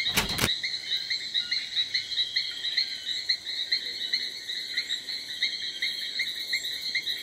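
Rainforest insects chirping: one call repeating steadily about four times a second, with a fainter, very high-pitched pulsing insect joining near the end. A short burst of noise at the very start.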